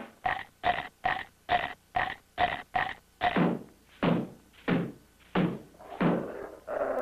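Cartoon beating sound effects: a quick run of short, pitched knocks, about three a second, then slower hits, each one dropping in pitch, as a cat clubs a dog with a stick.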